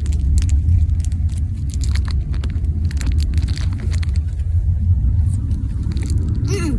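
Steady low rumble of a moving car, heard from inside the cabin, with small scattered clicks over it.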